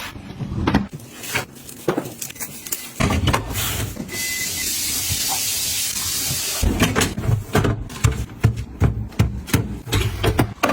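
Household items being handled and set down: a run of small clicks and knocks of containers and packaging, broken about a third of the way in by a steady hiss lasting a couple of seconds, then quicker clicking and knocking again.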